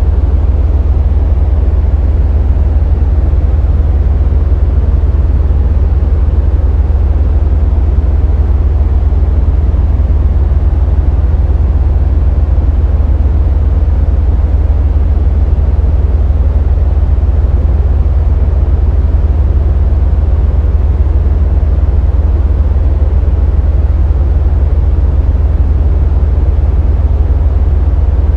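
Synthesized urban-style noise from an Access Virus TI synthesizer: a loud, steady, deep rumble, heaviest in the very low bass, with a thinner hiss above it. A faint tone slowly falls in pitch over the first several seconds.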